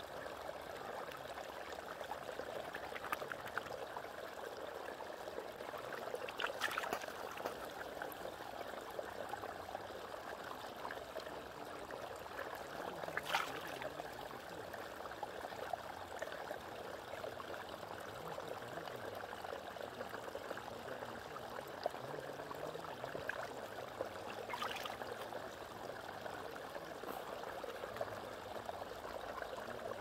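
Water flowing steadily in a stream, with a few brief clicks.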